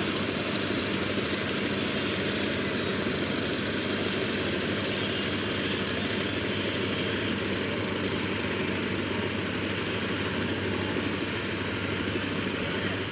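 Engine of heavy road-construction machinery running steadily, a low hum under broad mechanical noise, cutting off suddenly at the end.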